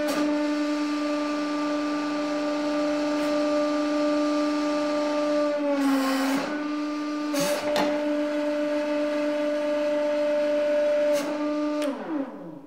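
150-ton hydraulic press's pump running with a steady hum. Its pitch sags briefly about six seconds in as the ram pushes into the plasticine, with a short noisy burst there and another about a second and a half later. The hum winds down, falling in pitch, near the end.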